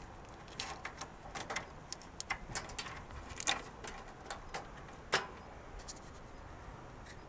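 Irregular small clicks and rustles of a bundle of low-voltage control wires being handled, with two sharper clicks about three and a half and five seconds in.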